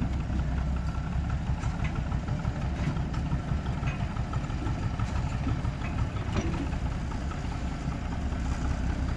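Narrow-gauge diesel switcher locomotive's engine running steadily at low throttle as it moves slowly with a wooden coach, with a few light clicks along the way.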